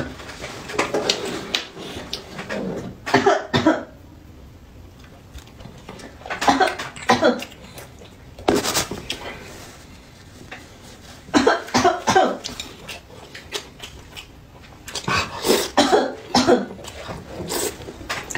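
A man coughing in repeated fits every few seconds, from food that is too spicy.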